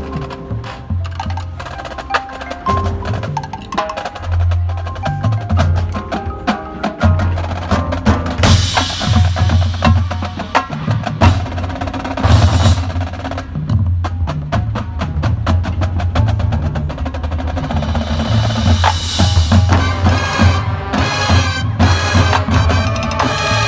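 Marching band playing live, heavy on percussion: rapid sharp drum strokes over a low bass line, with cymbal crashes about 8, 12 and 19 seconds in.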